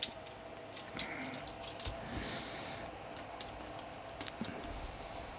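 Faint, scattered clicks and taps of a plastic action figure and its 3D-printed parts being handled, with a couple of soft rustles.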